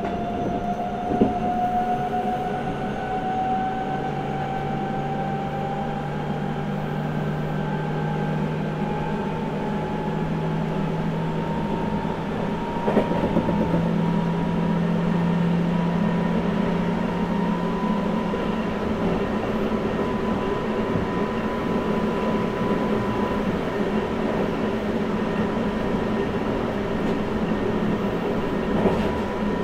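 Seibu 6000 series electric train heard from inside, its Hitachi GTO-VVVF inverter and traction motors whining with a pitch that rises slowly as the train gathers speed, then holds steady. Wheel and track rumble runs underneath with a few knocks, and a low hum under the whine stops about two-thirds of the way in.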